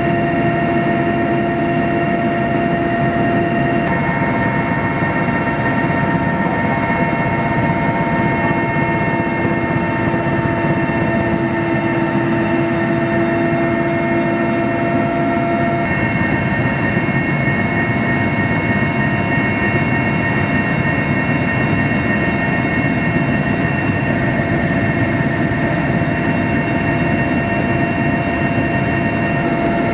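Steady, loud engine drone heard from inside an aircraft in flight, with several steady whining tones over the noise that shift in pitch a couple of times.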